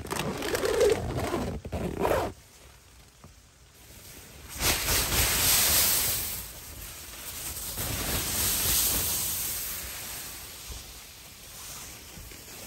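Rustling of tent fabric or bedding for about the first two seconds, then wind gusting outside the tent: a loud swell about five seconds in and a smaller one a few seconds later.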